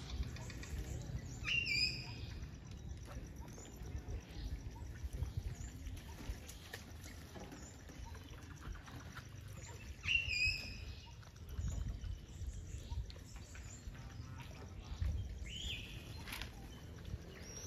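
A few short, high bird calls from aviary birds, heard about two seconds in, again around ten seconds and once more near sixteen seconds, over a low steady background rumble.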